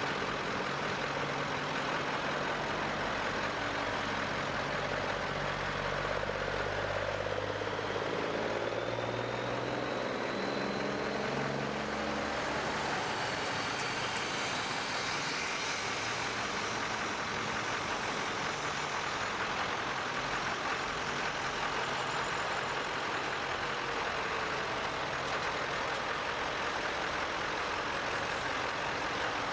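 Diesel engines of heavy trucks (flatbed tow trucks, a dump truck and heavy wreckers) running as they drive slowly past one after another, with a low, steady engine note for about the first twelve seconds.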